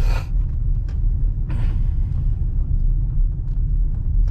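Steady low rumble of a car driving on a gravel road, heard inside the cabin, with two short bursts of hiss, one at the start and one about a second and a half in.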